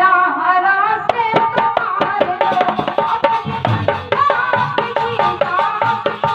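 Instrumental passage of Indian folk music: a fast hand-drum rhythm with many sharp strokes under a sustained melodic line.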